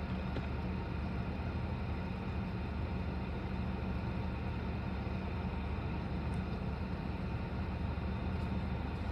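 Steady low rumble of idling vehicles, heard from inside a car stopped at a traffic light.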